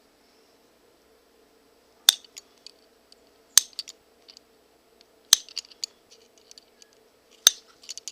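Hand leather punch snapping through leather four times, one to two seconds apart, each sharp click followed by a few lighter clicks of the tool. A faint steady hum lies underneath.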